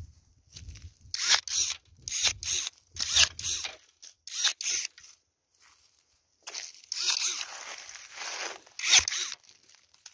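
Footsteps crunching through dry grass and fallen leaves, a short crunch with each step and a longer stretch of rustling about two thirds of the way in.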